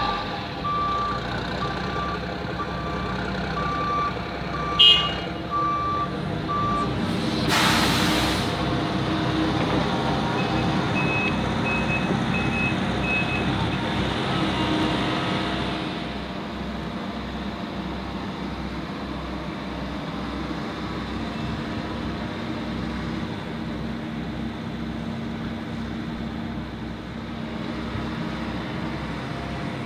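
Heavy diesel equipment at work: engines run steadily while a backup alarm beeps for the first several seconds. A sharp bang comes about five seconds in, then a one-second hiss of air. A second, higher-pitched backup alarm beeps for a few seconds around the middle.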